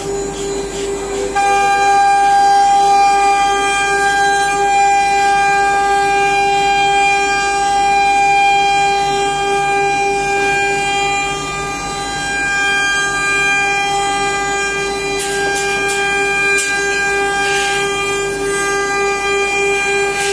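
CNC router spindle whining steadily as it carves a wooden door, a stack of higher steady tones joining about a second in, with a few brief scraping bursts near the end.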